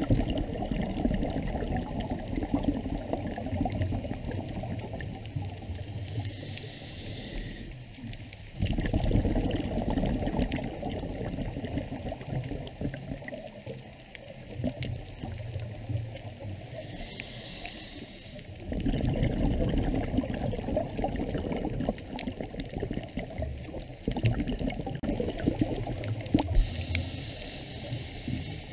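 Scuba diver breathing through a regulator, heard underwater. Long bubbly rumbles of exhaled air alternate with short hissing inhalations, a breath about every ten seconds.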